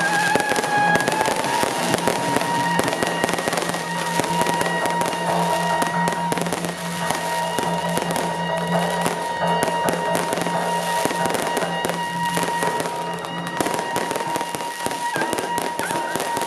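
A long string of firecrackers crackling without a break, with procession music of steady held tones sounding over it.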